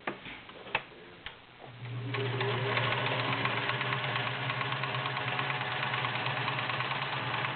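Kenmore Model 1720 all-metal sewing machine, freshly serviced, starting up a couple of seconds in and sewing steadily with a smooth, even hum, the classic smooth Kenmore sound. A few sharp clicks come before it starts.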